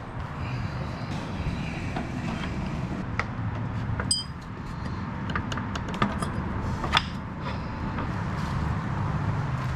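Steady low rumble with scattered small clicks and knocks, and a brief metallic clink about four seconds in, as parts and tools are handled.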